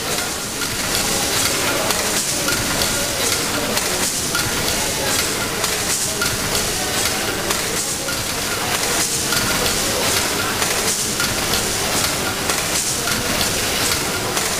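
Vertical triple-expansion steam pumping engine running: a steady hiss of steam over the clatter of its valve gear, with a slow regular beat.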